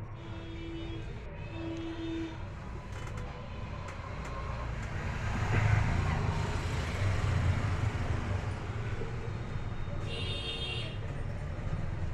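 Steady road traffic rumble, with two short horn toots in the first two seconds and a brief high-pitched tone about ten seconds in.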